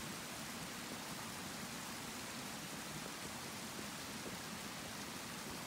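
Steady rushing of a small woodland creek cascading over rocks.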